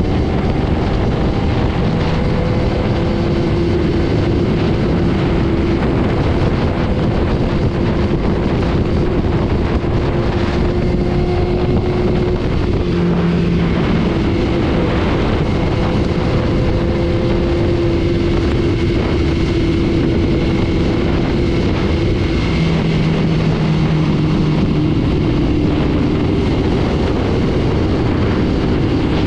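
Superbike cruising at steady highway speed on a wet road: wind rushing hard over the microphone, with the engine's hum holding a near-steady pitch underneath and the sound of rain.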